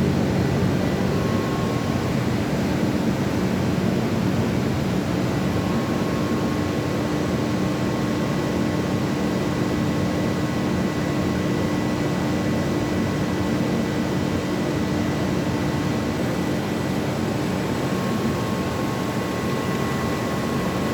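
Absorbent cotton processing machine running steadily: a loud, unbroken mechanical noise with faint steady hums running through it.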